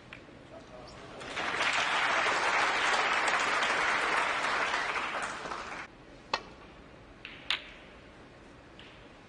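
Audience applause that swells about a second in, holds for roughly four seconds and stops sharply, followed by a few sharp clicks of snooker balls.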